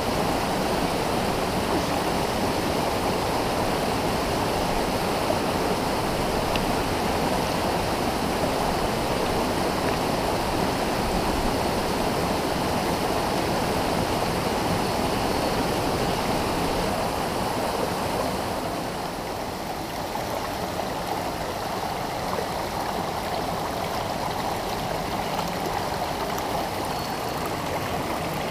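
Mountain stream rushing steadily over rocks and small cascades. It drops a little in loudness about two-thirds of the way through.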